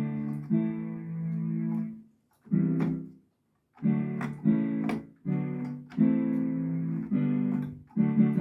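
A musical instrument playing a simple run of chords, each held for one to two seconds and cut off with short breaks between them.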